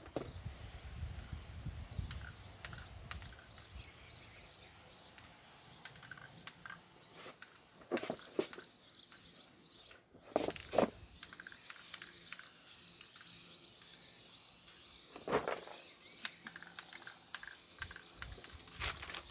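Outdoor ambience: a steady high-pitched insect drone, with a few short knocks about eight, ten and fifteen seconds in.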